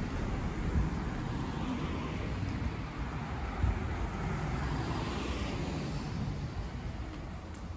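Outdoor street noise: wind rumbling on the microphone over a steady hiss of road traffic.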